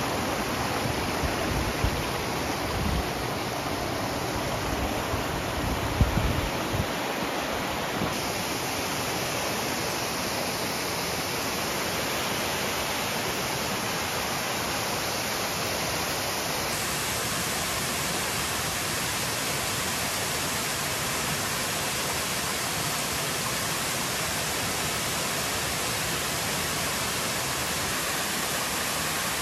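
Waterfall and the rocky cascade below it rushing in a steady, full roar of falling water. A few low thumps come in the first seven seconds.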